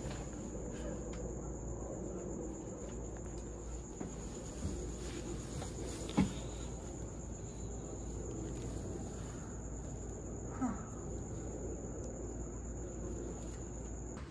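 Crickets chirping in one steady high trill, over a low outdoor hum. A single soft knock sounds about six seconds in, and a fainter one near eleven seconds.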